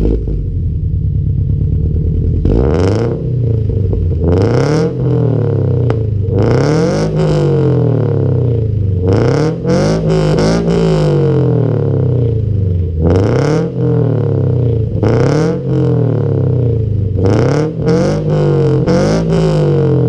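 2015 Toyota 86's 2.0-litre flat-four engine free-revved through its exhaust while stationary: the revs are blipped up and let fall again and again, about a dozen times, reaching around 6,500 rpm.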